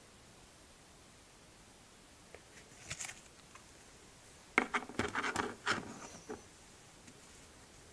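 Handling noise in a quiet small room. A few light clicks come about two and a half to three seconds in, then a denser flurry of sharp clicks and rubbing between about four and a half and six seconds, as collectibles and plastic card cases are handled near the phone.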